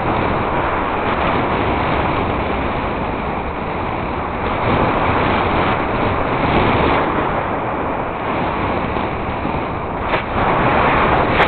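Wind rushing over the handlebar camera's microphone as a mountain bike rolls along a paved road, a steady loud rush that swells about halfway through and again near the end.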